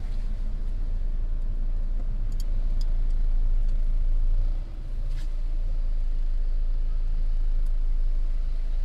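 Low, steady rumble of a car driving slowly in traffic, heard from inside the cabin: engine and road noise, with a few faint ticks.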